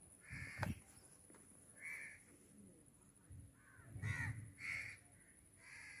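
A crow cawing, about five short calls spaced irregularly, with a couple of low thumps underneath, the loudest about half a second in.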